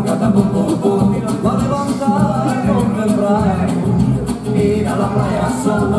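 A song with a singing voice over a steady beat, the music for a children's dance.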